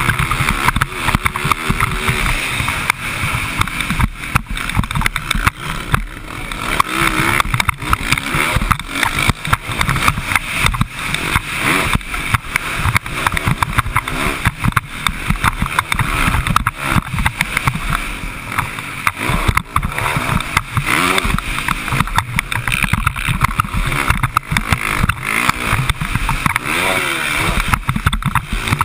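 Dirt bike engine revving up and down over and over as the bike is ridden around a motocross track, with constant wind buffeting and thumping on the bike-mounted camera's microphone.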